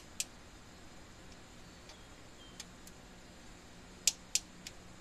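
A few sharp, separate metal clicks and ticks from small bolts being tightened into the aluminum Holley 600 carburetor's fuel bowl, with the loudest cluster of three about four seconds in.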